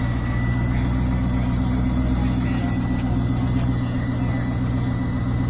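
Hot rod engine idling steadily with a low, even note.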